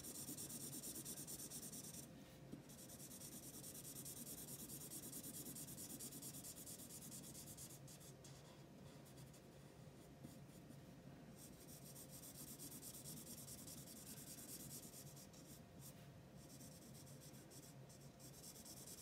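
Faint scratching of a dual-ended marker's fine nib on paper, many quick short strokes, going over a red area a second time to smooth out the colour.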